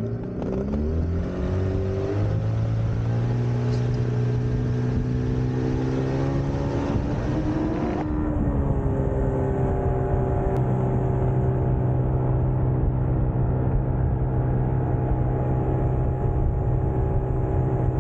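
Small outboard motor on an inflatable dinghy throttling up, its pitch climbing over the first couple of seconds as the boat gets up on the plane. It then runs steadily at high revs, with a brief shift in pitch about eight seconds in.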